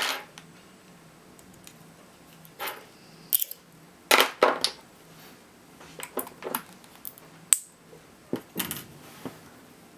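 Scattered clicks, clinks and knocks of pliers, a screwdriver and 18650 cells being handled on a desk as the cells are worked apart from the pack's nickel tabs and circuit board. About two-thirds of the way through comes one sharp, ringing metal clink.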